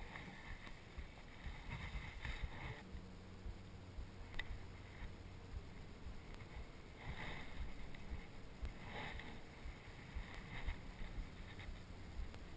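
Low wind-and-water noise around a small boat, with a faint steady hum starting about three seconds in and a few soft swishes.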